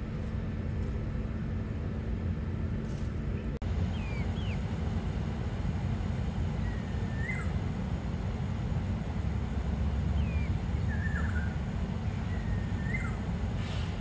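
Steady low rumble of city traffic, with short bird chirps now and then from about four seconds in, each a quick gliding note.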